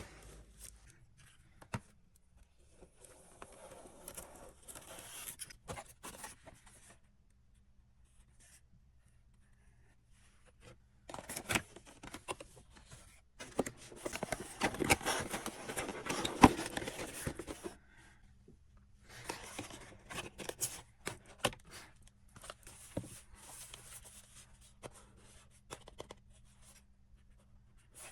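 Blind box packaging being handled and opened: cardboard scraping and plastic wrapping rustling and tearing in irregular bursts, with small clicks and taps between them.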